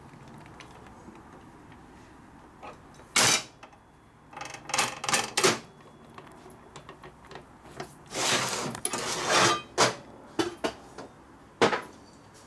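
Metal hand tools clanking and clinking against a steel motorcycle lift table. There is a sharp knock about three seconds in, a cluster of clinks around five seconds, a longer scraping rattle around eight to ten seconds, and a last sharp click near the end.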